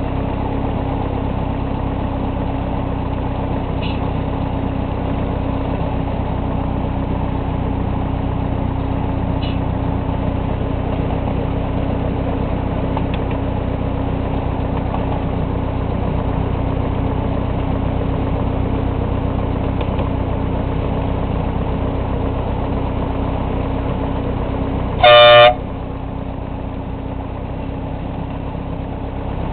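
Engine of a miniature diesel locomotive running steadily as it hauls along the track, with one short horn blast about 25 seconds in, the loudest sound here.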